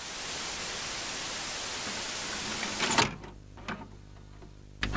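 Intro sound effect of steady TV-static hiss, cut off by a sharp hit about three seconds in. After that comes a low steady hum with a few mechanical clicks, like a tape machine's mechanism.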